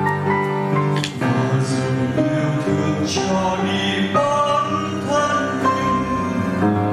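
Choir singing a Vietnamese hymn, with a male voice on a microphone and instrumental accompaniment.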